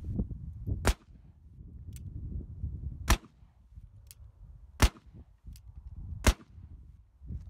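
1851 Navy .36-caliber cap-and-ball revolver firing four shots about one and a half to two seconds apart, with a lighter click between shots. Black powder charges that have sat loaded for a week go off normally.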